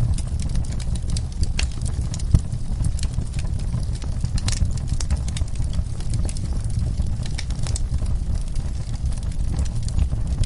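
Wood fire in a fireplace crackling: a steady low rumble of the burning fire with frequent irregular pops and snaps, one louder pop a little over two seconds in.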